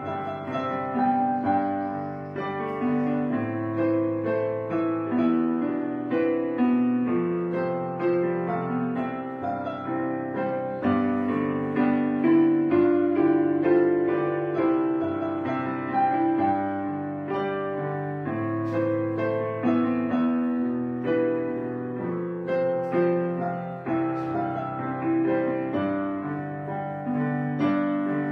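Background piano music, with notes and chords changing steadily throughout.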